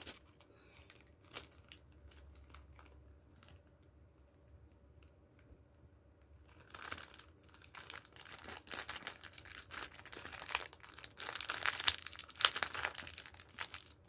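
A mooncake's foil-and-plastic wrapper crinkling and tearing as it is opened by hand. It starts about halfway through, after a few faint clicks, and goes on as dense, uneven rustling.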